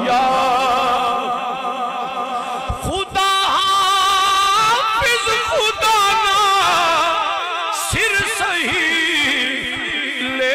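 A man singing a devotional verse into a microphone over a sound system: long held notes with a wavering vibrato and ornamented turns, with a new phrase starting about three seconds in and again near eight seconds.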